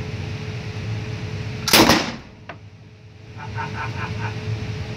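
A single gunshot from a machine gun fired one round at a time, about two seconds in, echoing briefly, over a steady ventilation hum. A light click follows about half a second later.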